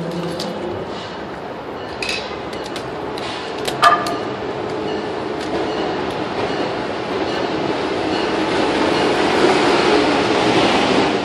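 Amtrak Acela Express high-speed electric trainset approaching and running past the platform, its rail noise growing steadily louder over the last several seconds. Two sharp clicks, the louder one about four seconds in.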